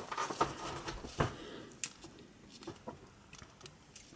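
Handling noise from repair work on a plastic headphone headband: quick clicks, taps and rustles as a toothpick is pushed in and small tools are moved about on the mat. The clicks are busiest in the first second and a half, then thin out to scattered light ticks.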